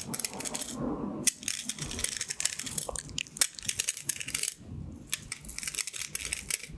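Pins of a colourful plastic pin-art toy sliding and clattering against each other: a dense, fast rattle of tiny clicks that sounds like Skittles or beads, coming in several pushes with short breaks between them.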